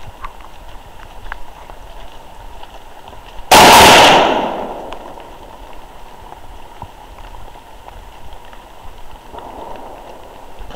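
A single loud, sharp bang about three and a half seconds in, dying away over about a second.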